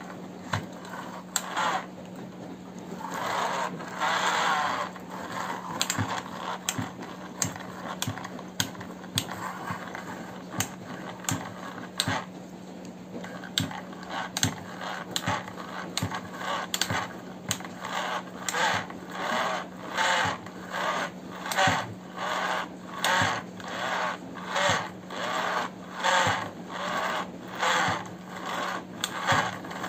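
Plastic toy excavator pushed back and forth by hand, its tracks and gears whirring and rattling with each stroke. The strokes come irregularly at first, then settle after about eighteen seconds into a steady rhythm of roughly three every two seconds. A steady low hum runs underneath.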